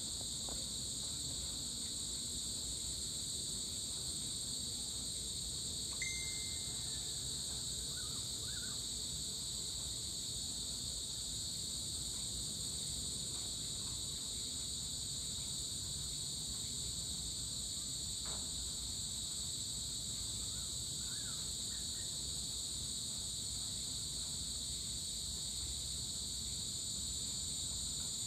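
Steady evening chorus of insects, a continuous high trilling in two pitch bands. About six seconds in there is a click and a short high note, and a few faint chirps come later.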